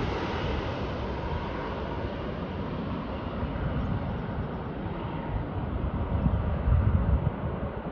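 Jet airliner passing low overhead on its landing approach: a broad engine roar whose hiss fades steadily as the aircraft moves away, while a low rumble swells near the end.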